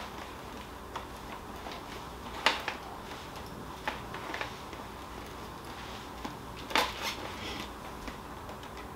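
Bell SRT modular motorcycle helmet being pulled on and its chin strap worked: scattered faint clicks, knocks and rubbing, the loudest knocks about two and a half and about seven seconds in.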